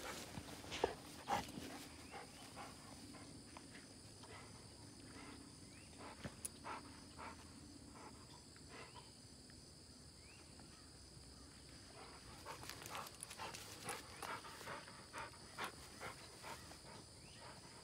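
Hunting dogs barking faintly in the distance at irregular intervals, more often in the last few seconds.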